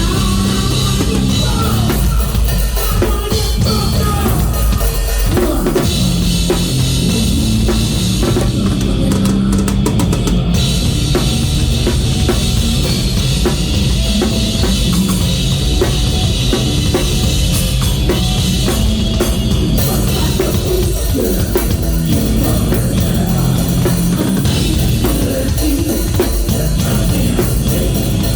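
Loud rock band playing live, the drum kit up front with bass drum, snare and cymbals driving a steady rhythm under the other instruments.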